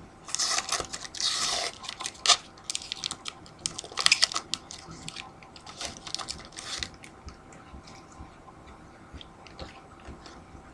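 A sealed hockey card pack's wrapper being torn open and crinkled, in several bursts of crackling during the first seven seconds, then only faint scattered ticks.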